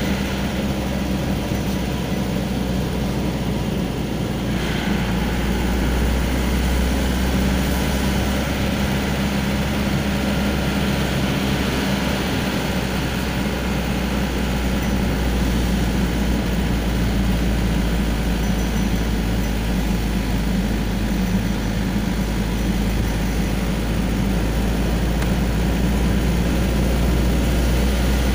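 Car engine and road noise heard from inside the cabin while driving: a steady low hum.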